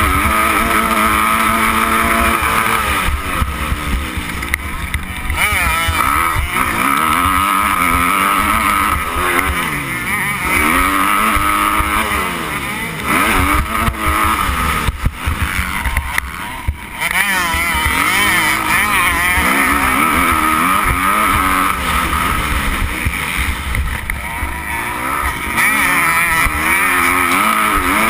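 Motocross bike engine revving hard, its pitch climbing and falling over and over as the rider works the throttle and shifts through the gears, with a brief drop in level about two-thirds of the way through.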